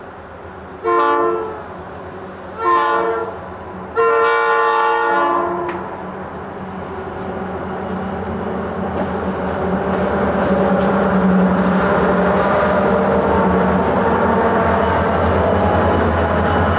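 Diesel locomotive horn sounding three blasts, two short and a longer third, then the engines of the Southern Pacific diesel locomotives hauling a freight train growing louder as they approach and pass close by.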